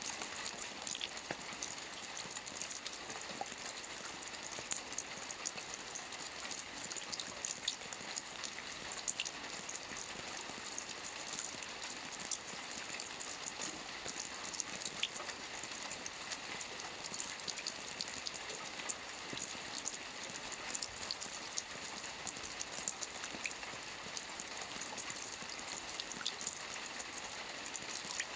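Steady rain falling, with a dense patter of individual drops striking a surface.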